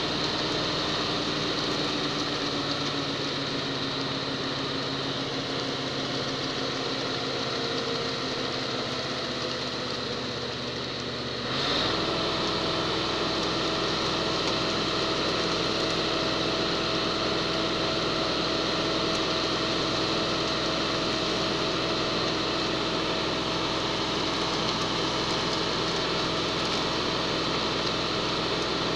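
Concrete mixer truck's diesel engine running steadily under load while the drum turns and discharges concrete down the chute. About twelve seconds in, the engine speed steps up suddenly and holds at the higher pitch.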